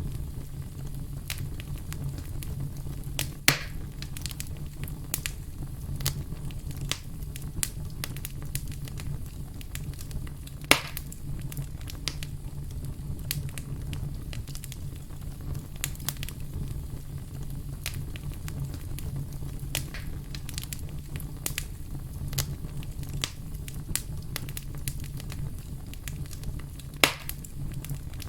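Wood fire in a fireplace crackling: frequent small sharp snaps over a steady low rumble. Three louder pops stand out, a few seconds in, about eleven seconds in, and near the end.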